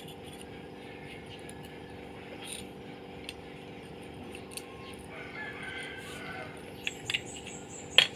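A rooster crowing faintly, about five seconds in, over a steady hum, with a few light clicks scattered through.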